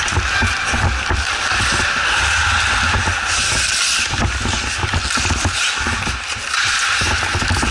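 Ice hockey play heard in an ice rink: skates scraping the ice and sticks and puck clacking in many short knocks, over a steady rushing hall noise.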